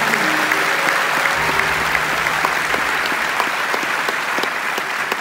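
Large audience applauding in a hall, a dense steady clapping. Low sustained music notes are underneath it for the first couple of seconds and then fade out.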